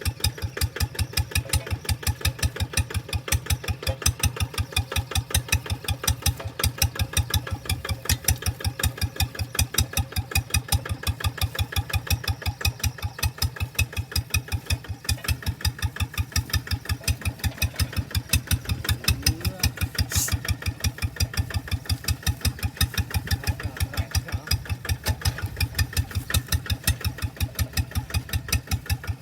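Hand tractor's engine idling steadily with an even, slow pulsing beat. A brief click about twenty seconds in.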